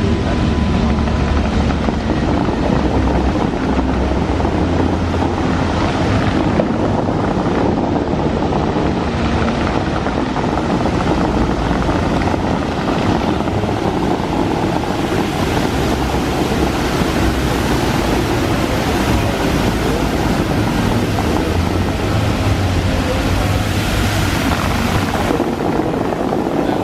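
Bellagio fountain water jets rushing and spray splashing back into the lake, a steady loud wash of water noise.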